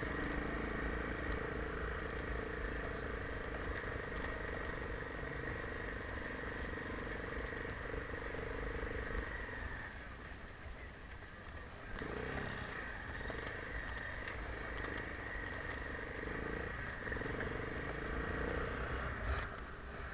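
Enduro motorcycle engine running steadily at low speed. It eases off about ten seconds in and picks up again about two seconds later.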